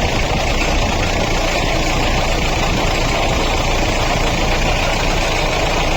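Mahindra Bolero engine idling with a loud, steady abnormal mechanical noise from its water pump: the pump bearing is damaged, worn out by an over-tightened alternator belt.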